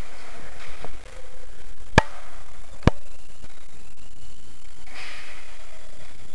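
Two sharp snaps about a second apart, with a fainter one just before, over a steady hiss.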